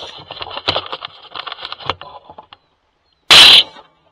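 A single loud rifle shot from an AR-15 about three seconds in, sharp and short. Before it come scattered faint clicks and crackles.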